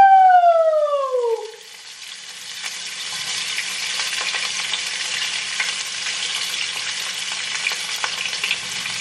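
A woman holds one long, high sung note that falls away and ends about a second and a half in. Then comes a steady crackling sizzle of vegetables frying in a pan, with a faint low hum beneath.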